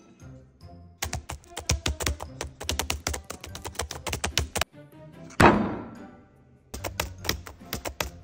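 Rapid typing on a laptop keyboard: two runs of quick key clicks with a pause between them, and one louder thunk about five seconds in. Background music plays underneath.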